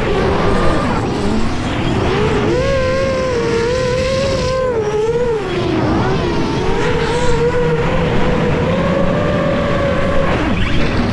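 Catalyst Machineworks Cannonball X-class racing drone's motors and propellers whining, heard from the drone's onboard camera, the pitch rising and falling as the throttle changes.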